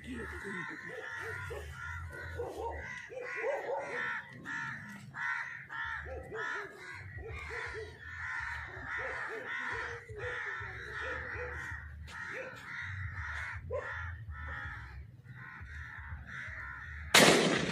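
Birds calling over and over in short, rapid calls. Near the end a single shotgun shot goes off, much the loudest sound.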